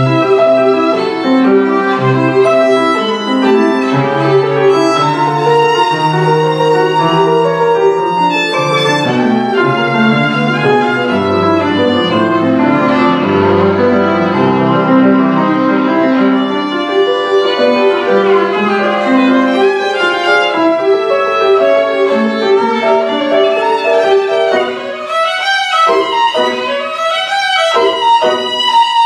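A child plays a violin melody with grand piano accompaniment. Near the end the notes become shorter and more detached.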